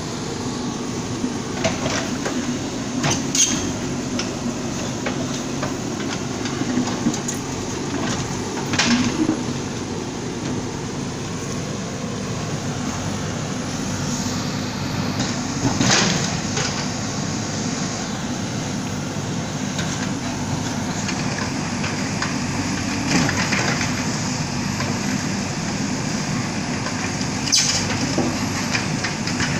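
Bulldozer's diesel engine running steadily under load, with a handful of sharp knocks and crashes spread through, about five over half a minute, as the machine breaks up a water tank.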